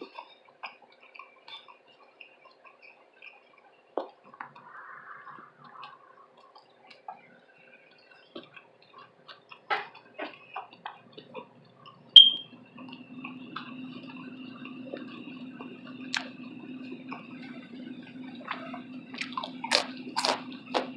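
Close-miked eating: wet chewing and small mouth clicks. About twelve seconds in there is one sharp click, the loudest sound, and right after it a steady low hum with a thin high whine starts and keeps running.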